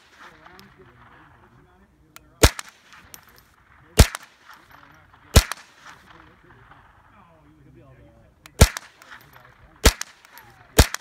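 Gunshots at a shooting range: six sharp reports at uneven intervals, about one to three seconds apart.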